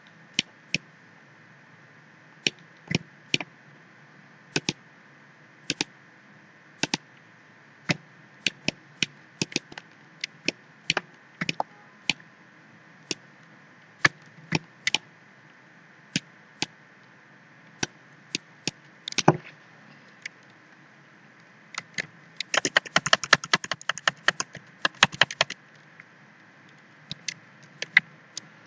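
Computer mouse clicks, single and in quick pairs, every second or so. Past the middle comes a rapid run of keyboard typing lasting about three seconds, then a few more clicks. A faint steady hum lies underneath.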